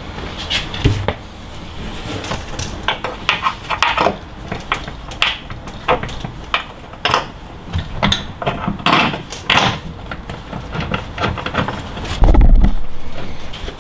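Irregular metal clicks and clinks as bolts and nuts are started by hand on a Hardrace front upper camber arm's mounting bracket, with one heavier low thump near the end.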